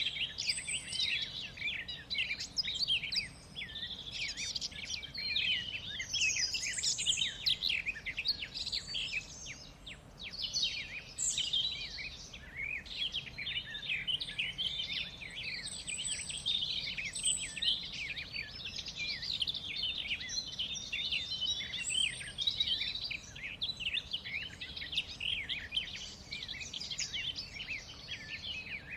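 A dense chorus of many songbirds chirping and trilling together without a break.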